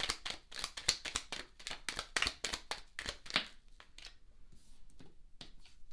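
Tarot cards being handled and turned over onto a table: a quick run of crisp card snaps and taps, thinning to a few soft taps after about three and a half seconds.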